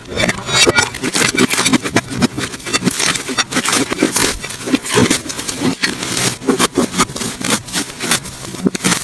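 Slime being squished and kneaded by hand, giving a dense, irregular run of sticky clicks and pops.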